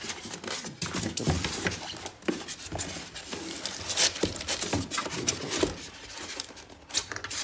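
Unpacking noise: hard plastic cleaner attachments being worked out of a styrofoam packing tray, giving irregular rubbing, scraping and knocks of plastic against foam and plastic.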